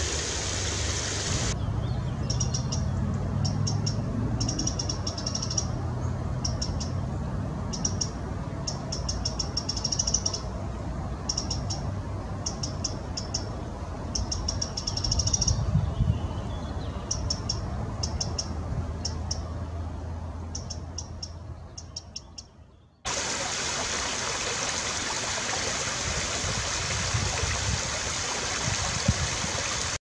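A small forest stream running over a low cascade, cutting after a second or so to a Eurasian wren singing. The wren gives quick, high-pitched trilling phrases repeated with short pauses. The song fades out about 22 seconds in, and the stream's running water is heard again steadily to the end.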